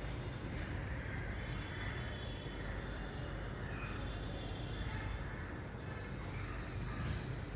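Steady city background noise: a low, even traffic rumble, with a few faint high chirps of distant birds over it.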